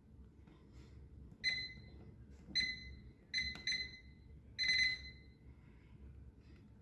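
Microwave oven keypad beeping five times as the cooking time is entered, each a short high beep, the last one a little longer.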